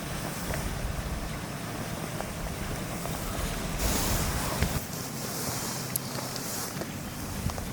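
Wind buffeting the microphone with a low rumble over a steady hiss of moving water, with a brief louder rush of water about four seconds in.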